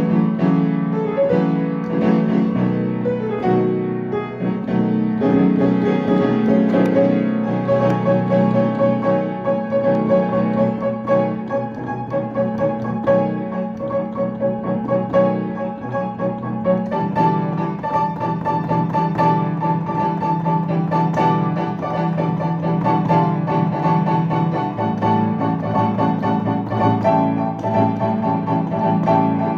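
Piano music: a melody over held chords, with a higher line coming in about halfway through.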